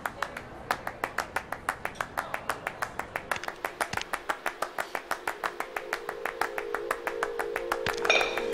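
Fast, evenly spaced clicks in the film's soundtrack that speed up and grow louder, with a sustained musical drone fading in partway through and a bright chime near the end.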